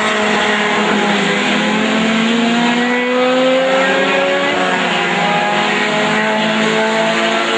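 A pack of Clase 2 touring race cars, mostly VW Gols, running hard together. Several engine notes overlap, and one climbs steadily in pitch over a couple of seconds in the middle as a car accelerates.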